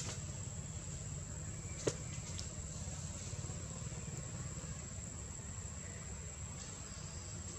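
Forest ambience: a steady high-pitched insect drone over a low rumble, with one sharp click a little under two seconds in.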